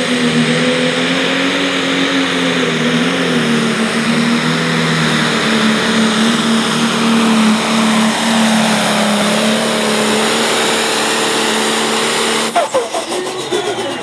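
Pro Stock pulling tractor's diesel engine running flat out at a steady pitch under load down the track. Near the end the throttle is cut abruptly and the engine sound breaks up and winds down with falling whines.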